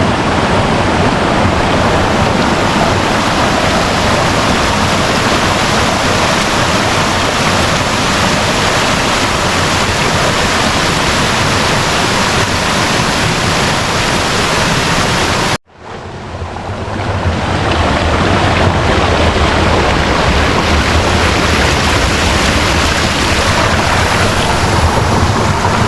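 Waterfall pouring into its plunge pool: a loud, steady rush of falling water. About fifteen seconds in, it cuts out abruptly and swells back up over a couple of seconds.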